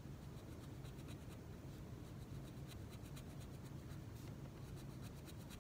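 Felt-tip marker scratching faintly on paper in many short strokes as an arrow is drawn.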